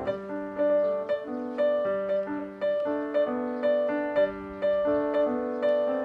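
Background piano music: a gentle melody of notes struck at an even pace, about three a second.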